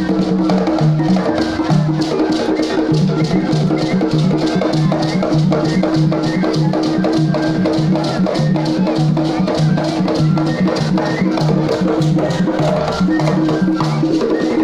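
Traditional drumming for the Bagisu imbalu dance: fast, dense hand-drum strokes in a steady repeating rhythm over a low pitched drum figure.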